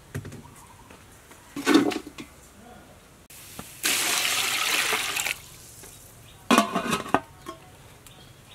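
Water poured into a metal pot over raw chicken feet: a steady splashing pour lasting about a second and a half, near the middle. It is framed by short metal clatters, one about two seconds in and another near the end as the aluminium lid is set on the pot.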